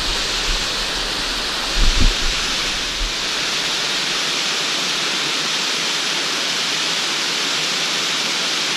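Small waterfall spilling over a rock ledge into a stream pool: a steady rush of water. A couple of low thumps about two seconds in.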